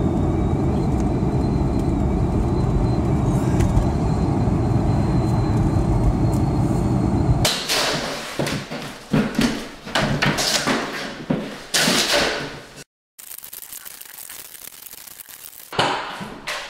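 Steady low road rumble inside a moving car's cabin. About halfway through it gives way to a run of sharp knocks and clatter from demolition work in a bare room, which cuts out for a moment near the end.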